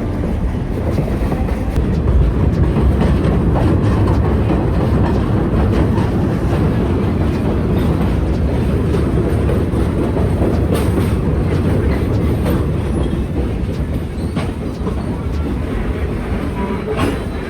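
Verde Canyon Railroad passenger train running along the track, heard from aboard: a steady low rumble of wheels on rail with occasional faint clicks.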